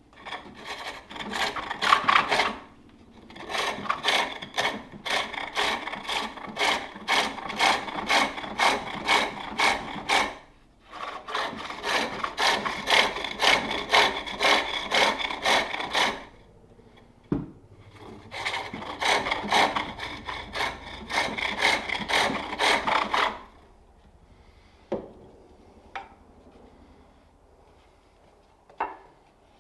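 Tool cutting a wooden bowl blank spinning on a spring pole lathe: a rhythmic rasping cut about twice a second, one cut per treadle down-stroke, in four long spells with short pauses. A few single knocks near the end.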